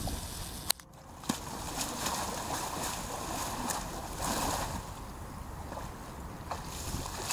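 Water splashing and sloshing as a horse wades and paws in a shallow pond, with a sharp knock a little under a second in.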